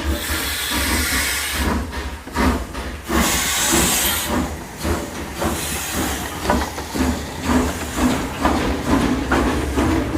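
Steam locomotive hissing steam loudly twice, then settling into a steady rhythmic chuffing of its exhaust as it pulls away.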